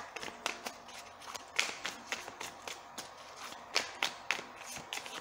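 A deck of tarot cards shuffled by hand: a quick, irregular run of soft card slaps and clicks.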